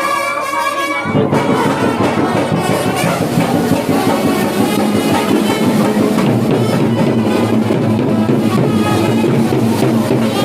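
Music with brass and drums, playing steadily, its low drum end coming in about a second in.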